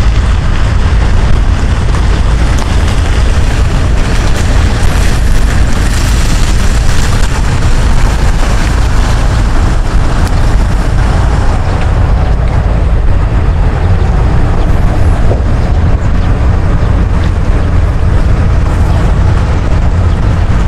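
Wind buffeting the microphone: a loud, steady, low rumble with a noisy hiss over it.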